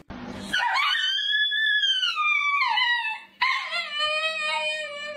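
Husky-type dogs howling: one long howl that rises and then falls, then, about three and a half seconds in, a second, lower howl that holds steady.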